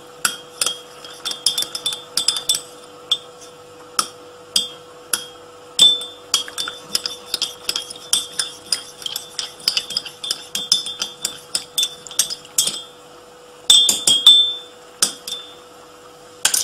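Metal spoon clinking against the inside of a ceramic cup while stirring saffron into a little water: quick, irregular ringing clinks, several a second, with a denser flurry about fourteen seconds in. A faint steady hum runs underneath.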